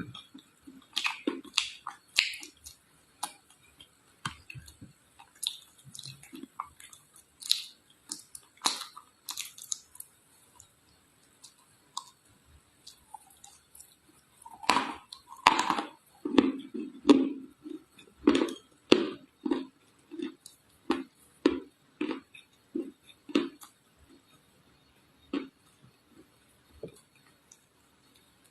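Red clay being bitten and chewed: scattered sharp crunches, then from about halfway a regular chewing rhythm of about two chews a second.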